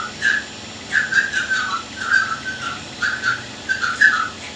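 A whistled tune: short phrases of high, slightly sliding notes with brief pauses between them.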